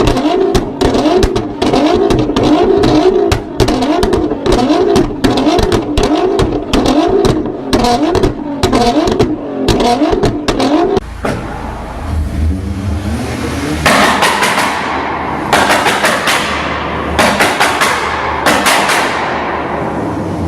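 A car engine revved rapidly up and down with a dense stream of sharp exhaust pops and bangs, the backfire of an anti-lag system. About halfway through, the revving stops and a lower engine note carries on, with four loud rushing bursts that each fade away.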